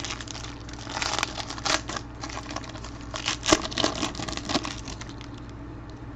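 Plastic wrapping on a trading-card pack crinkling and tearing as it is opened and handled, in scattered crackly bursts that die away about five seconds in.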